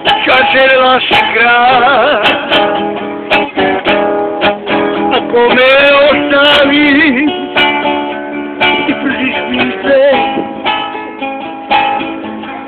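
An older man singing while strumming an acoustic guitar, his voice wavering on held notes.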